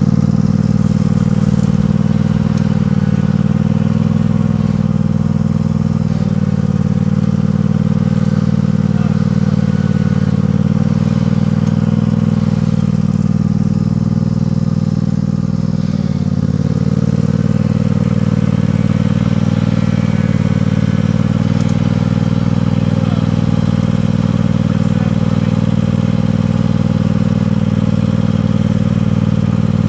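An engine running steadily at a constant speed, with a brief slight drop in level about halfway through.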